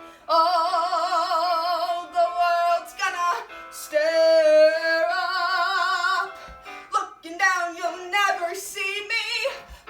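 A woman singing a show tune with accompaniment, holding two long notes with wide vibrato, then shorter phrases.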